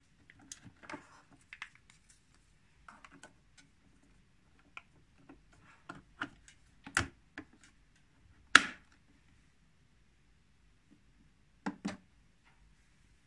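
Scattered clicks, taps and knocks of hands handling a Bosch capsule coffee machine. One knock about two-thirds through is the loudest, and two quick clicks come close together near the end.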